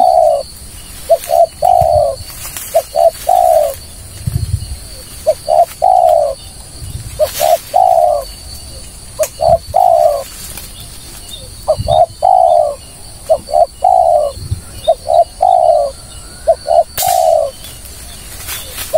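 Spotted dove (tekukur) cooing: a repeated phrase of two short notes and a longer coo, about every two seconds.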